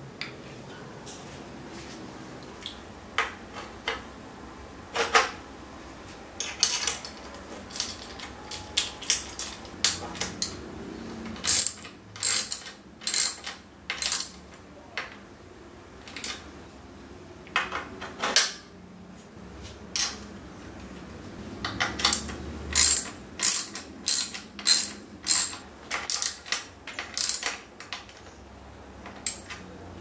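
Ratchet wrench clicking as it tightens the pivot bolts of bicycle rim-brake arms onto the frame's brake bosses. The clicks are sharp, scattered at first, then come in quick runs of about two a second around the middle and again near the end.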